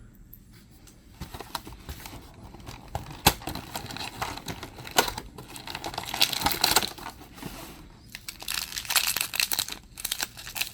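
Toy blind-bag packaging being crinkled and torn open by hand, a dense run of crackling and tearing that starts about a second in and grows busier toward the end.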